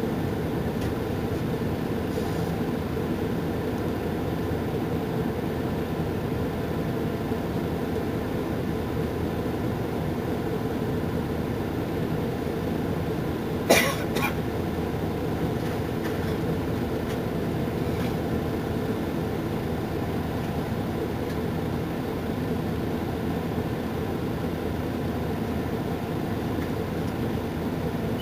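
Mercedes-Benz Intouro Euro 5 bus's diesel engine idling steadily while the bus stands stationary, with a sharp clack about halfway through.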